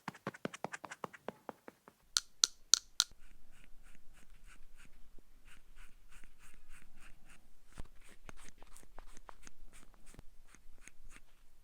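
Close-up ASMR makeup sounds: rapid light tapping, then four sharp clicks about two seconds in, then soft repeated brushing or rubbing strokes at about two to three a second.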